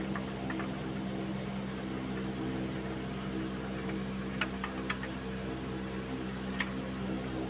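Steady mechanical hum with a few light metallic clicks about four and a half seconds in and one sharper click near the end, as the crankshaft timing belt sprocket is fitted onto a Honda B16A2 engine's crank.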